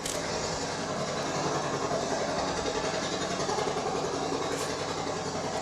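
Recording of a helicopter played back: steady engine and rotor noise with a fine, fast pulsing.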